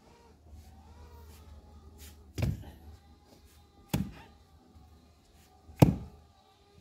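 Three sharp strikes of a hand tool against the wood and roots of a tree stump being dug out, roughly one and a half to two seconds apart, the last the loudest.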